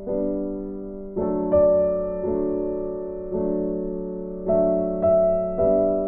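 Background piano music: slow, gentle chords, each struck and left to fade.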